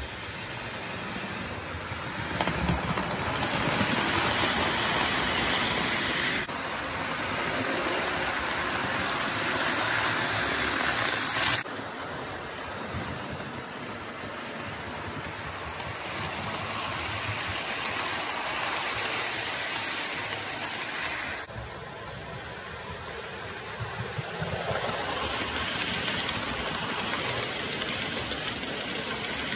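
Model trains running on the layout track: a steady whirring and rolling noise from the locomotive motors and the wheels on the rails. It jumps in loudness at several sudden cuts.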